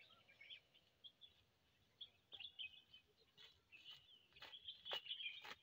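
Faint birds chirping, with a few footsteps on gravel from about two seconds in, closer together near the end.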